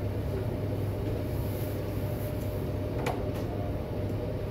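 Steady low hum and rumble of room background noise, with one faint click about three seconds in.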